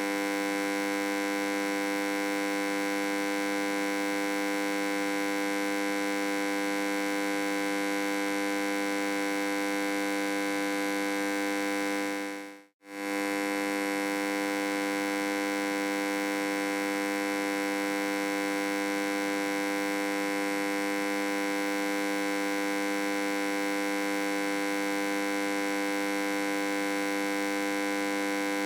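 Electric hum: a steady buzzing drone with many overtones. It dips out briefly about thirteen seconds in and comes straight back.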